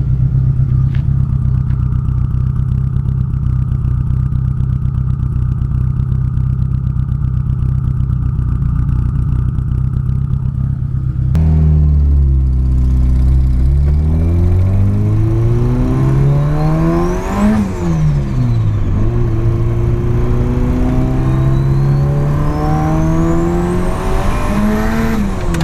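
Nissan SR20DET turbo four-cylinder with 272 Brian Crower cams idling steadily. About eleven seconds in, it is revved up and down twice, with a high whistle rising along with each rev.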